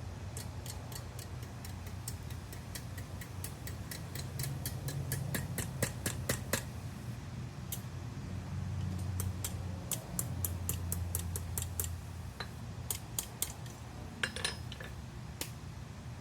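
Light, quick hammer taps on small 1/4-inch round steel bar at the anvil, about four strikes a second in a long run, then in short groups with pauses. A steady low hum sits underneath.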